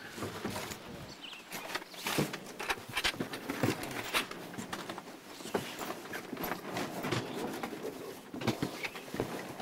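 Irregular knocks, thuds and footsteps as fishing gear is handled and set down on a wooden dock, with a few bird chirps.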